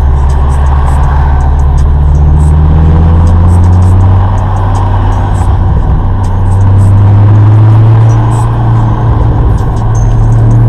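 Acura RSX Type S's four-cylinder engine droning steadily at freeway cruise, heard from inside the cabin over tyre and road noise. The engine note climbs slightly in pitch over the first few seconds as the car picks up speed.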